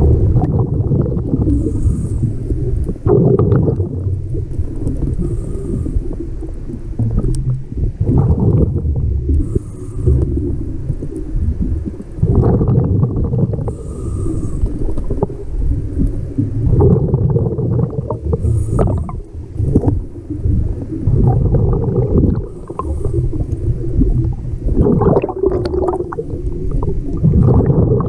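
Scuba diver breathing through a regulator, recorded underwater. Each breath brings a faint hiss as air is drawn in, then a loud bubbling gush of exhaled air, about every four to five seconds.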